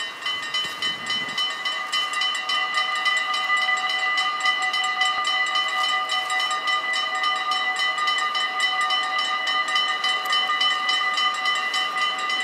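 Mechanical bells of a Dutch automatic half-barrier level crossing start ringing suddenly and keep up a rapid, even clangour of several bells together. They warn that a train is approaching and the barriers are about to lower.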